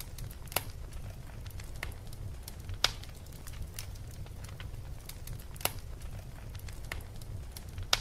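Fire crackling: a steady run of small pops and snaps over a low rumble, with about four louder pops spread through.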